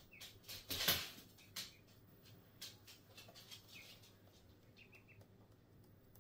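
A few soft taps and a brief rustling whoosh about a second in, then a duckling's few faint, short, high peeps near the end.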